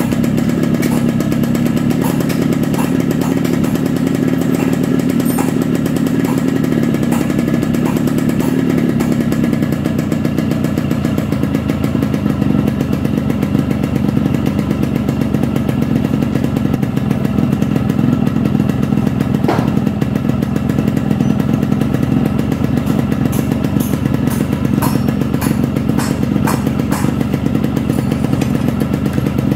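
Yamaha RX Special's two-stroke single-cylinder engine running steadily at idle, freshly rebuilt with a new piston, connecting rod and crankshaft bearings.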